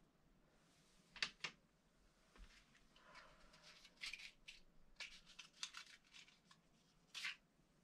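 Soft scratching and rustling from hands working to light a fire log, with two sharp clicks about a second in and a short, sharper scrape near the end.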